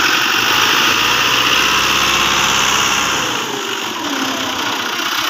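Engine-driven farm machinery running steadily and loudly, its deep engine note dropping away about three seconds in while the higher machine noise carries on.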